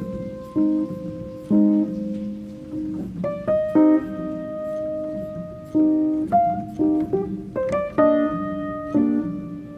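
Instrumental background music: a slow melody of struck notes over low chords.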